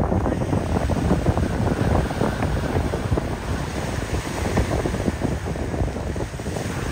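Wind buffeting the microphone in low, gusty rumbles, over the wash of small waves breaking on a rock breakwater.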